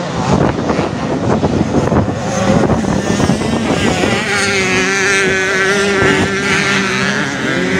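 Vintage motocross bikes racing, engines revving hard with a crackling exhaust; from about four seconds in one bike's engine note comes through steady and high, its pitch wavering slightly.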